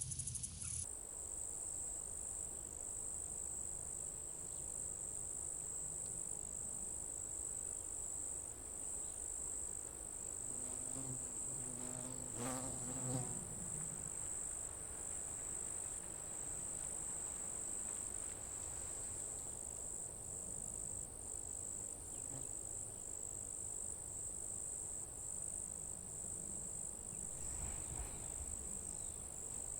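Insects trilling in a steady, high-pitched, slightly pulsing drone. About twelve seconds in, a brief lower-pitched call with several tones rises over it for about a second.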